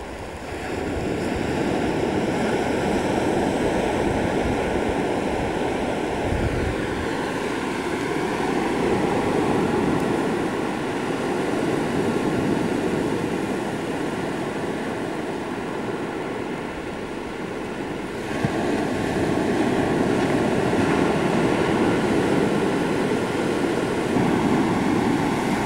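Ocean surf breaking and washing up the beach: a steady, continuous rush of waves that swells and eases, growing louder again about two-thirds of the way through.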